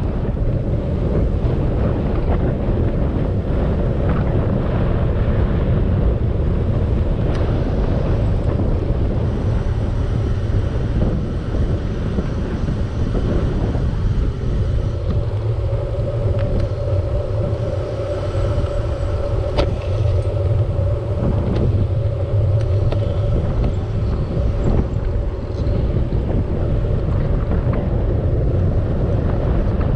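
Wind rushing over the camera microphone of a bicycle rolling downhill: a loud, steady, low rumble. A steady mid-pitched tone runs with it for several seconds in the middle.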